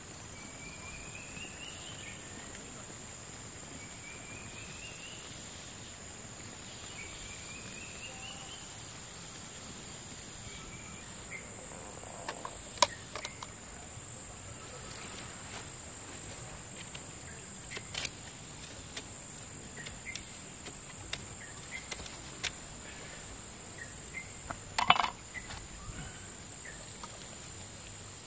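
Steady high-pitched insect drone with outdoor ambience. For the first several seconds a bird calls in short rising notes about every two seconds. Later come scattered sharp clicks and knocks, the loudest cluster about 25 seconds in.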